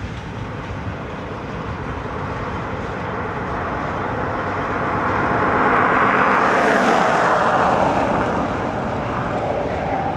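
Freight train rolling past with a steady rumble. A louder passing vehicle swells over it, loudest about six to seven seconds in, its pitch falling as it goes by, then fades.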